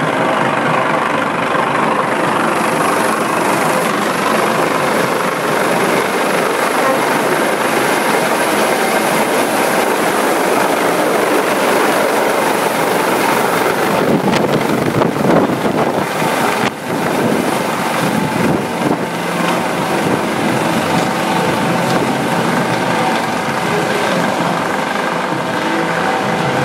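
Loud, steady engine drone, with a brief unsteady patch a little past the middle.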